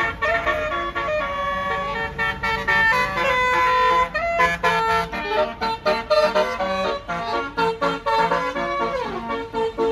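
A bus's Basuri telolet musical horn playing a fast tune of held and short notes, with a falling slide near the end, over a low rumble.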